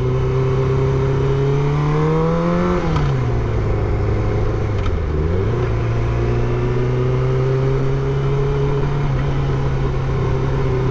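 Motorcycle engine running steadily. About two seconds in, the revs rise for about a second, then drop back. They dip briefly a couple of seconds later before settling to a steady pitch.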